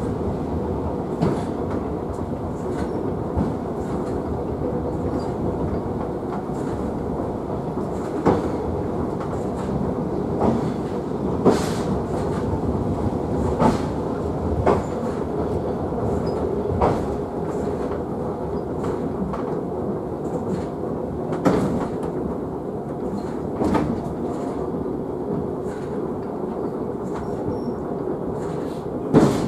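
Sakamoto Cable funicular car running downhill on its rails: a steady rolling rumble with a faint even hum, broken by sharp clicks and clacks every one to three seconds at uneven spacing.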